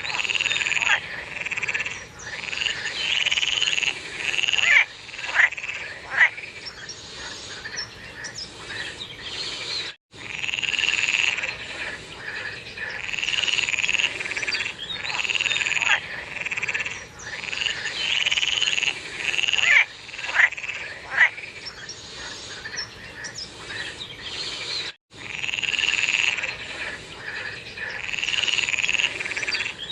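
A chorus of frogs calling, with repeated croaking calls and a few sharper, louder calls standing out. The sound cuts out completely for an instant twice.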